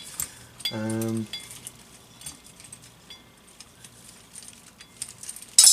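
Light metal clicks and clinks from handling metal ceiling-fan parts, with a short hummed voice about a second in and a loud sharp clatter near the end.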